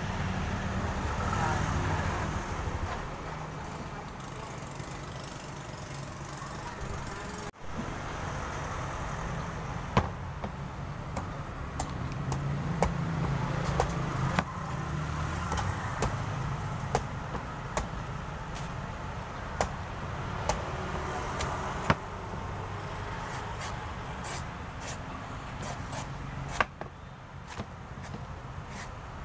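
A cleaver chopping into the husk of a young green coconut: sharp single chops at irregular intervals a second or more apart, with several in quicker succession near the end, over a steady background rumble.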